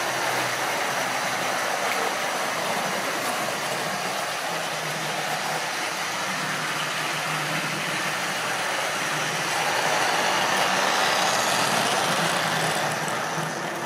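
Triang or Lima model railway trains running on the layout track, a steady electric-motor whir and wheel rumble with a low buzz. It grows louder about ten seconds in as a tank locomotive hauling wagons passes close by, then drops away near the end.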